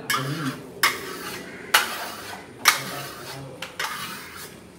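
Metal stucco trowel blade scraping across a Venetian stucco wall in repeated polishing strokes, about five of them at roughly one a second, each starting sharply. The trowel is burnishing the fresh marble-effect stucco to a glossy shine.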